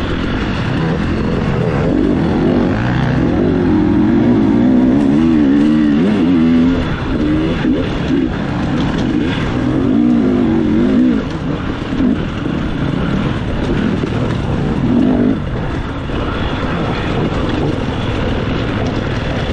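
Dirt bike engine revving up and down over and over as the rider works the throttle racing an off-road course, heard from the rider's own camera. The revving is strongest for several seconds from about two seconds in, and again briefly near the middle.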